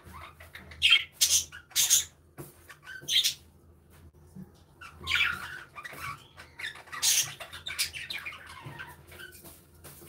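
A flock of budgerigars chirping and squawking: scattered sharp, high calls that come in quick clusters about a second in, then around three, five and seven seconds in.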